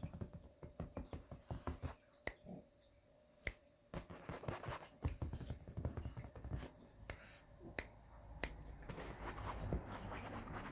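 Scattered sharp clicks and taps, a few of them standing out, over low rumbling handling noise close to the microphone.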